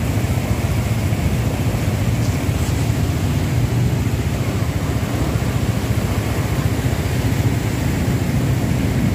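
Steady rumble of slow traffic, cars and motorbikes driving through floodwater on a city road.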